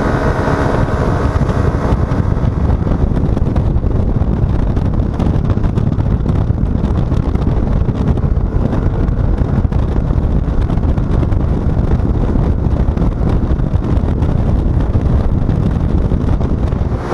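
Wind rushing over the microphone of a riding camera on a moving Yamaha XMAX 125 scooter, steady and loud enough to bury the engine. A faint engine tone shows through only in the first couple of seconds.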